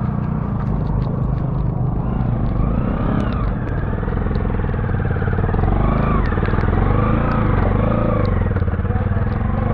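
Motorcycle engine running under way, its pitch rising and falling with the throttle.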